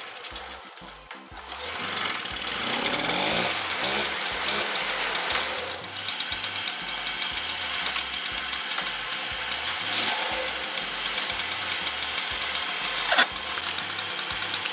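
Mobylette Cady moped's small single-cylinder two-stroke engine catching after being pedal-started, revving up over a couple of seconds and then settling into a steady idle, which is a good idle for a 20-year-old engine. A single sharp knock near the end.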